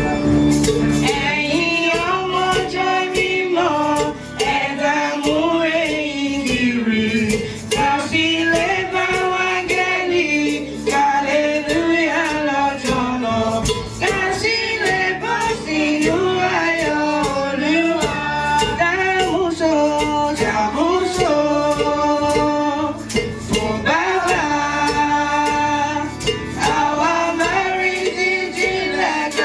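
Congregational singing of a hymn, men's and women's voices together, with tambourine and other percussion keeping a steady beat and an instrument backing.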